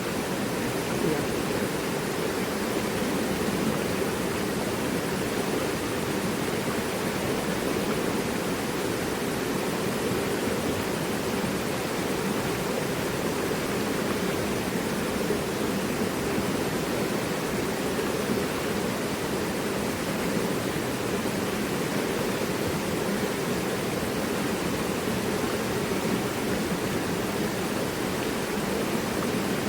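Mountain river rushing steadily over rocks, a continuous even roar of flowing water.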